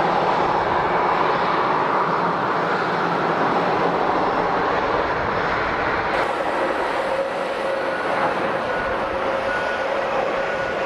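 Jet airliner engines running, a loud, steady rush of noise. The sound shifts abruptly about six seconds in, and faint steady tones come through near the end.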